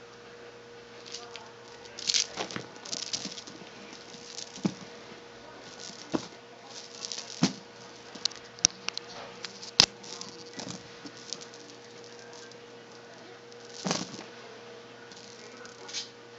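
Irregular scuffling, rustling and sharp taps of a cat batting and pouncing at a coiled cord toy dangled over a bed, its paws on a hard tiled floor. A sharp click stands out about ten seconds in, over a faint steady hum.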